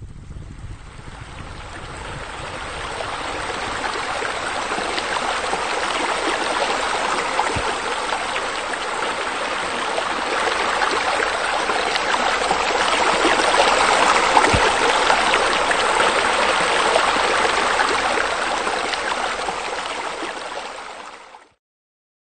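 Steady rush of running, splashing water from a pool water feature. It swells over the first few seconds and cuts off shortly before the end.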